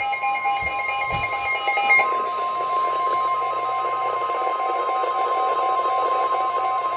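Weather radio alert: the steady single-pitch warning alarm tone of NOAA Weather Radio, the signal that a warning message follows, played through a radio speaker. For about the first two seconds it is layered with other radios' pulsing, higher alert beeps, and a softer pulsing beep continues beneath it.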